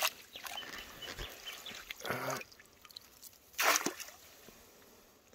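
Net yabby trap dropped into shallow muddy dam water: a splash about three and a half seconds in, with light sloshing and trickling around it. A shorter, sharp sound comes about two seconds in.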